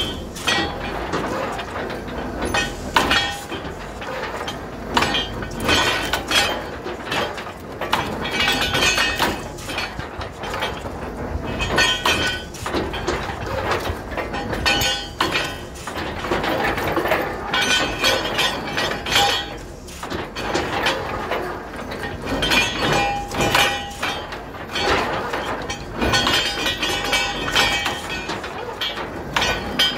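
Truck-mounted borewell drilling rig running while it drills: a steady mechanical din with frequent irregular metallic clanks and knocks.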